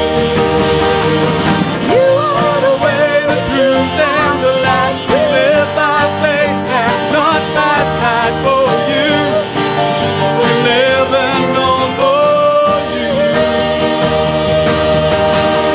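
A worship song played by a band with a lead voice singing a slow melody, holding long notes over a steady accompaniment.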